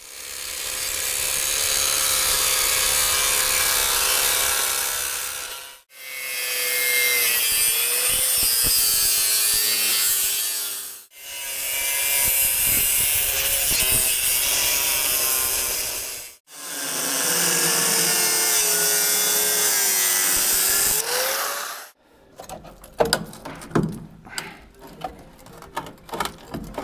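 Angle grinder with a cutting wheel slicing through the steel rocker panel of a classic Chevy/GMC pickup cab. There are four stretches of cutting, each ending abruptly, and the motor's whine sags and wavers in pitch as the wheel bites into the metal. In the last few seconds come irregular clanks and scrapes as the cut-off rocker panel is pulled away.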